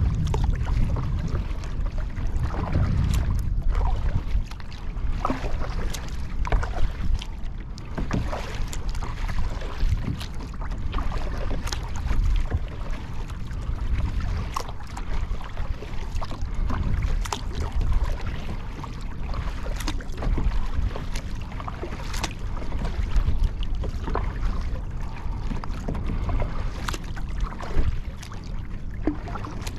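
Water splashing and lapping around a Field & Stream Eagle Talon 12 kayak, with irregular small splashes and knocks every second or two. Heavy wind rumble on the microphone runs underneath.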